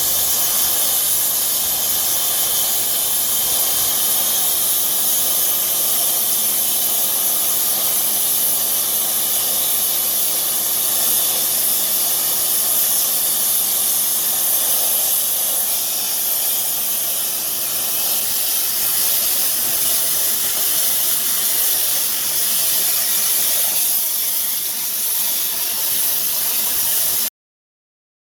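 Plasma cutter torch cutting: a steady, loud hiss of the air-plasma arc and gas jet that stops abruptly near the end.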